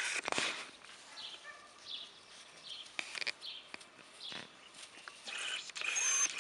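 Brief rustling noises, loudest near the end, with faint bird chirps in the background.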